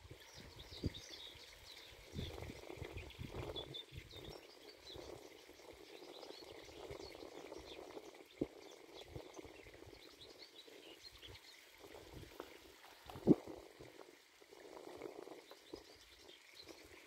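Small songbirds chirping and singing over a gusty rushing noise, with a few short sharp sounds, the loudest about thirteen seconds in.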